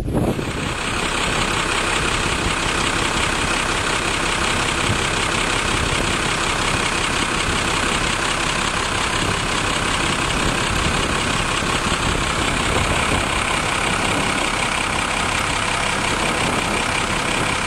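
Cummins B-series diesel engine idling steadily, heard up close from the open engine bay.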